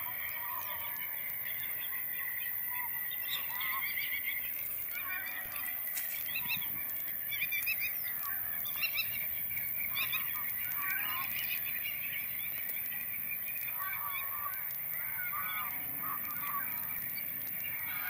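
A flock of geese honking, many calls overlapping throughout.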